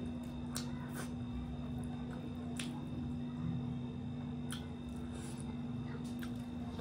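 Close-up eating sounds of fish curry and rice eaten by hand: wet chewing and mouth noises with a few scattered sharp clicks, over a steady low hum.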